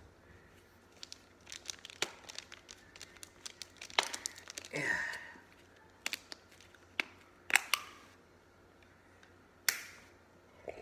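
Plastic drink bottle handled and drunk from: scattered sharp clicks and crinkles of the plastic, with a longer rushing swell about four seconds in.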